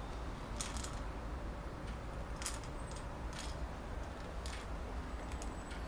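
Light, scattered clicks and ticks, about eight of them, as a small dog noses and mouths a plastic ball, over a low steady hum.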